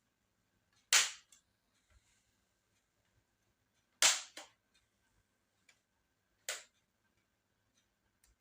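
Sharp plastic snaps as the clips of a laptop's bottom cover pop loose under a pry tool: three loud cracks, about a second in, near the middle with a smaller one just after, and again about two seconds later.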